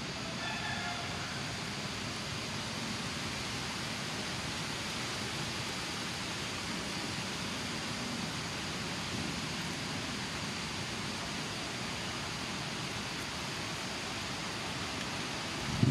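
Steady, even hiss of outdoor background noise, with a faint short chirp in the first second.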